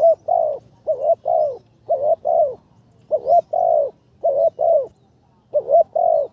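Spotted dove cooing: about six phrases, each a quick coo or two followed by a longer coo, repeated roughly once a second.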